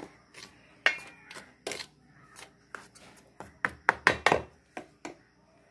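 A plastic spoon knocking and scraping against a steel mixing bowl as dry flour and spices are stirred together: a string of irregular knocks, thickest about three and a half to four and a half seconds in.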